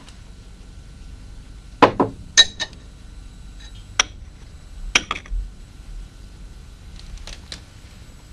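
Porcelain spoon and chopsticks clinking against ceramic bowls and plates. The clinks are sharp and scattered, about nine in all, some in quick pairs.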